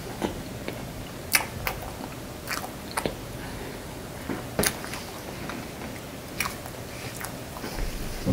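Close-miked chewing of soft whipped-cream strawberry roll cake, with scattered sharp clicks.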